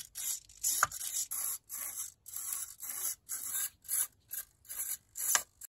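Hobby servo motors whirring in short repeated bursts, about two to three a second, as the mask's eyes, eyelids, mouth and ears are driven back and forth in an operation test. The sound cuts off suddenly near the end.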